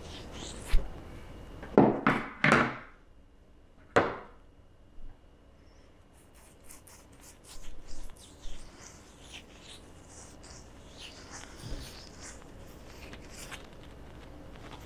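Fingers rubbing sunscreen into the face and stubble close to a clip-on lapel microphone: a few sharp knocks and rustles in the first four seconds, then faint scattered rubbing.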